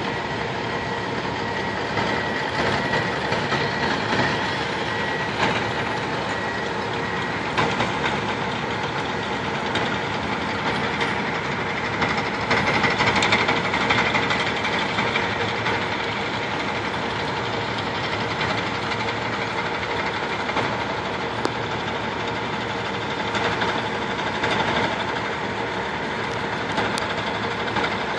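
Crawler dozers' diesel engines running steadily, with the clatter of their steel tracks as they push and spread gravel base. The sound grows louder for a few seconds about halfway through.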